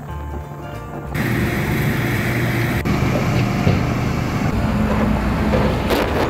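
Heavy vehicle engines running steadily, with a low drone. The sound comes in suddenly about a second in, after a quieter start.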